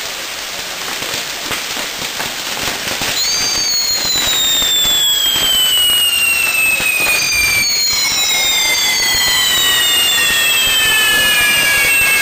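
Ground fireworks going off: a dense crackle and hiss of sparks. From about three seconds in, several long whistles overlap, each sliding slowly down in pitch, and the whole grows louder.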